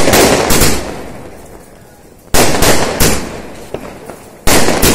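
Aerial shells from a 120-shot stacked rocket box firework bursting overhead: six sharp bangs in three close pairs about two seconds apart, each fading off in a long echo.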